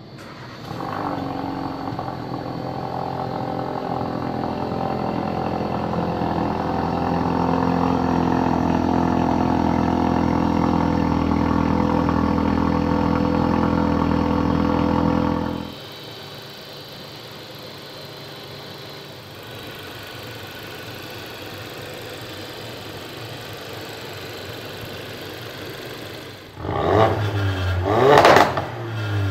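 2016 Ford Focus RS's turbocharged 2.3-litre four-cylinder engine and exhaust running steadily and loudly for about fifteen seconds, then dropping abruptly to a quieter idle. Near the end it is revved twice, each rev rising and falling quickly.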